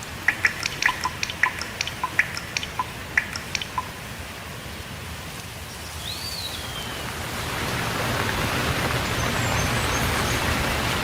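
Rain falling, with a quick run of loud, plinking water drips in the first few seconds, a short falling chirp about six seconds in, and the rain's hiss growing heavier from about eight seconds on.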